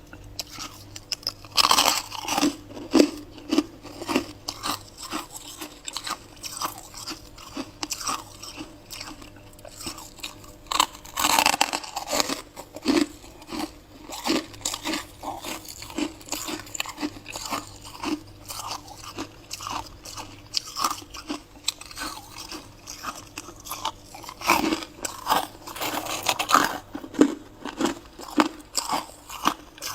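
Close-miked crunching and chewing of ice, bitten off in big bites with louder crackling bursts at the bites, then ground between the teeth in a rapid string of crisp cracks. A few bites come about 10 s apart, near the start, the middle and the end.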